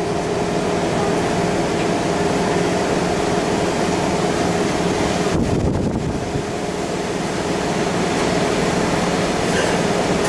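Steady hum inside a standing Keikyu 1500-series commuter train car, its air conditioning and onboard equipment running, with several low steady tones under a hiss.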